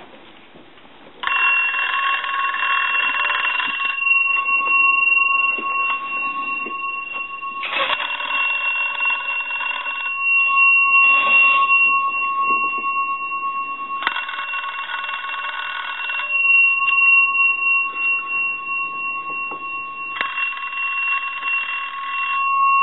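Telephone bell box ringing in four bursts of about two and a half seconds, roughly six seconds apart, like an incoming-call ring cadence. A steady high-pitched tone runs underneath the whole time.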